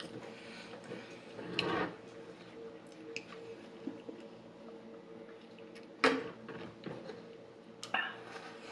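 Handling and drinking from a large plastic-lidded insulated water bottle with a flip-up spout: small clicks and rustles, a sharp clack about six seconds in, and a smaller click near the end. A faint steady hum underneath.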